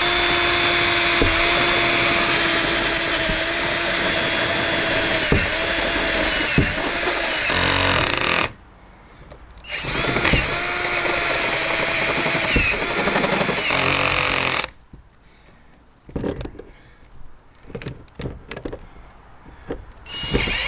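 Electric drill with a step drill bit cutting through the van's sheet-metal body panel. It runs in two long stretches with a short stop about 8.5 s in, its pitch dipping now and then under load. After it stops, a few scattered light knocks.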